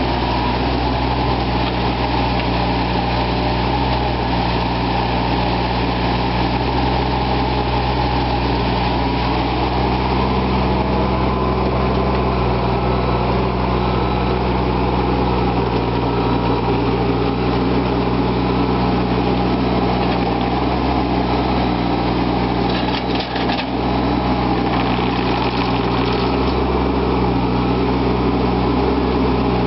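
Caterpillar 302.5 mini excavator's diesel engine running steadily under working load while it digs. A few brief knocks come through about three-quarters of the way in.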